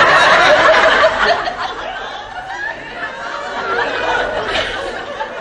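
Studio audience laughing after a punchline. The laughter is loudest at first, dies down over a couple of seconds and briefly rises again.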